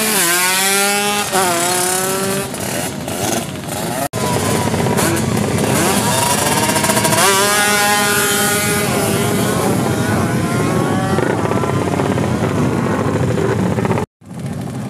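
Drag-racing underbone motorcycle engines revving hard and accelerating, their pitch climbing and falling back again and again as they rev and shift. The sound drops out for a moment about four seconds in and again near the end.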